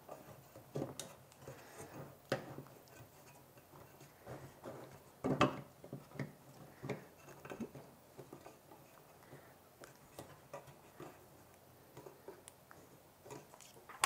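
Scattered light clicks and knocks of hands pushing a stepper motor into a plastic 3D-printed motor mount and handling the parts, with one louder knock about five seconds in.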